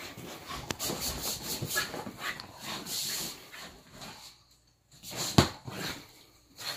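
Basenji digging and pawing at bed sheets: rapid scratching and rustling of fabric. The scratching pauses briefly, then there is one sharp thump about five and a half seconds in.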